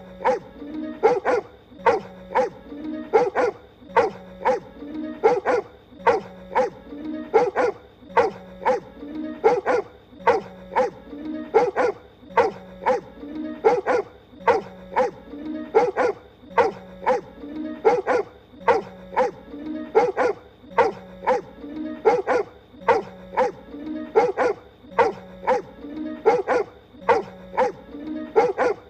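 A cartoon pony voiced barking like a dog: a short run of sharp yapping barks looped over and over, repeating about every two seconds, with music underneath.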